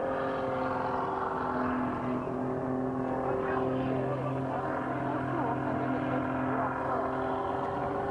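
Engine and propeller of a Pitts Special aerobatic biplane in flight, a steady drone made of several even tones. The pitch settles after a fall and wavers slightly as the plane manoeuvres.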